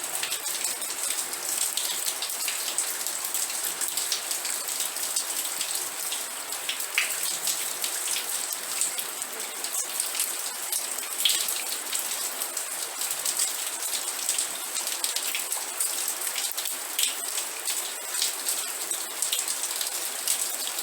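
Steady rain falling, an even hiss with many separate drops ticking on a hard surface.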